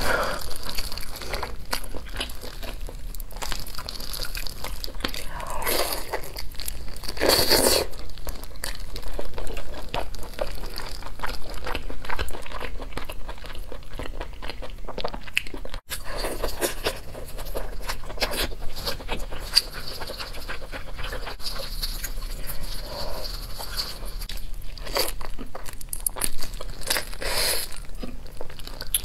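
Close-miked eating sounds: a whole spiced roast chicken being torn apart by plastic-gloved hands, then chewing and biting into the meat, with many small wet mouth clicks and smacks.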